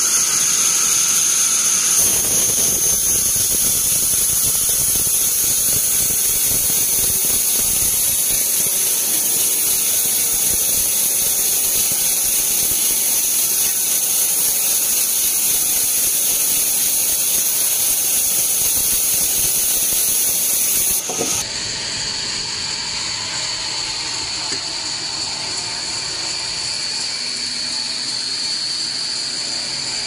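Vertical band sawmill blade cutting through a teak log with a loud, steady, high-pitched squeal. About 21 seconds in this breaks off suddenly and a quieter, steady high whine of the saw running takes over.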